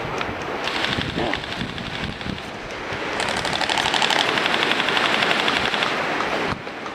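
Airsoft electric gun firing on full auto: a rapid, even rattle of shots, strongest in a long burst from about three seconds in that cuts off suddenly near the end.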